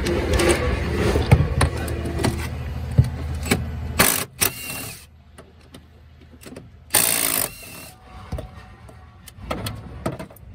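A cordless power driver fitted with a special star-bolt socket runs in two short bursts, each under a second, about four and seven seconds in, undoing the bolts that hold the Tesla Model 3's battery pack to the floor. Before that, a steady low hum with clatter fills the first four seconds.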